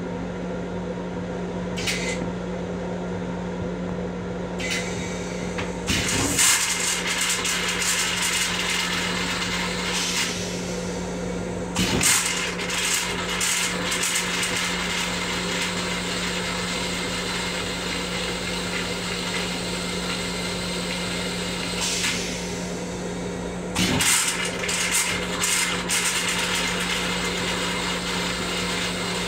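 Steady low hum and noise of an M7 commuter railcar heard from inside its small restroom, with rattling and clicking that grows busier about six seconds in. A few sharp knocks stand out, about six, twelve and twenty-four seconds in.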